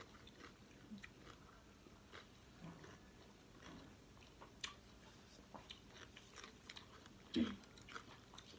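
Faint close-up chewing of a mouthful of pasta and raw cucumber, with small crunches and wet mouth clicks, and a louder brief sound about seven and a half seconds in.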